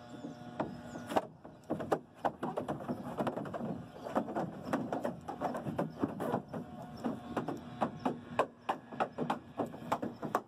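A rapid, irregular series of knocks and clattering clicks, several a second, some sharper and louder than others.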